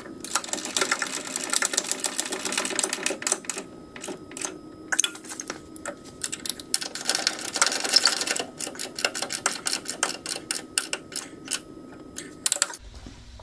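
Hand socket ratchet clicking in fast runs as a bolt is turned, with two long stretches of rapid clicking, one in the first few seconds and one around the middle, and shorter runs of clicks between and after.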